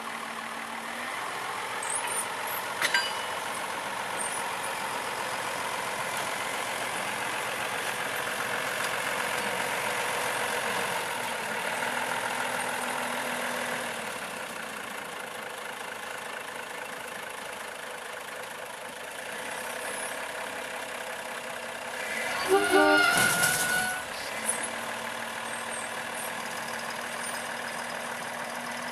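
Small narrow-gauge diesel locomotive running steadily as it pulls away with a brake van. About 22 seconds in comes a loud, wavering pitched sound lasting about a second and a half, the loudest moment.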